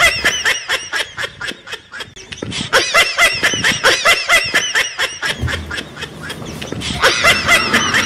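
Laughter: a rapid run of short high laughing syllables, about five or six a second. It grows quieter a little past halfway and picks up again near the end.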